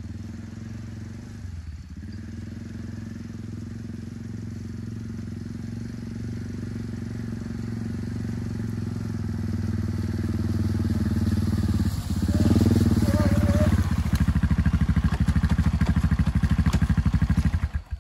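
ATV engine running as the four-wheeler approaches, getting steadily louder. It drops briefly as the quad pulls up, then idles loud with a fast, even beat, and cuts off suddenly just before the end when it is shut off.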